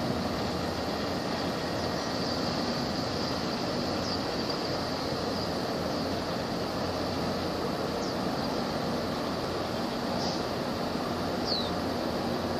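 Steady low rumble of a 1,700-TEU container ship's engines as it passes close by, mixed with water and wind noise. A faint high steady buzz runs underneath, with a few short high chirps, one falling near the end.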